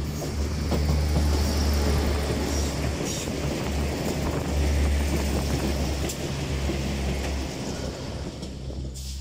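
Irish Rail 2600 class diesel multiple unit passing close by: a low diesel engine rumble with wheel and rail noise and a few sharp clacks. It fades near the end as the train draws away.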